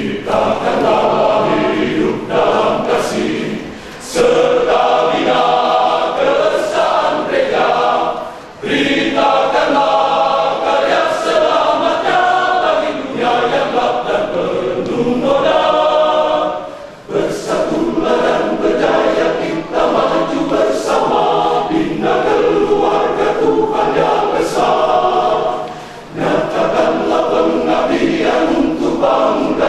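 Choir singing in parts, several voices together in sustained phrases with short breaks between them.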